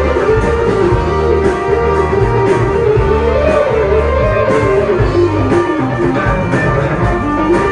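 Live rock band playing an instrumental passage: a guitar-led melody over bass and drums, with a drum beat about once a second.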